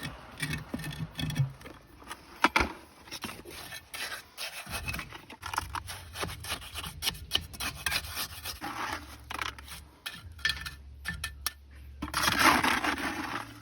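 Irregular scraping and rubbing of a hand tool working soil or cement, in short strokes with sharp knocks, one loud knock a couple of seconds in and a longer scrape near the end.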